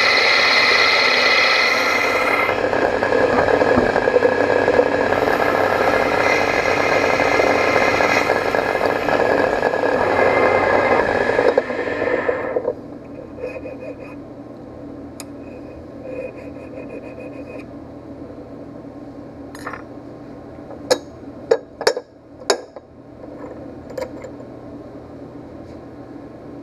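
ProtoTrak CNC lathe running, its spindle spinning as a tool turns a small metal rod: steady loud machining noise with a high whine, which stops abruptly about halfway through. After that only a low hum, with a few sharp metallic clinks near the end.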